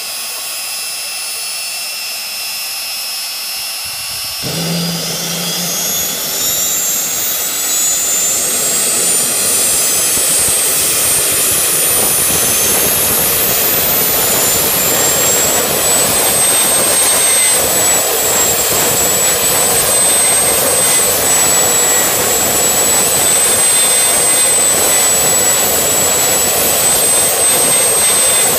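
Jet engine on a test stand spooling up. A steady high whine, then about four seconds in a loud roar comes up and the whine climbs steadily in pitch for some twelve seconds. It then holds at a high, steady pitch with the engine running at speed.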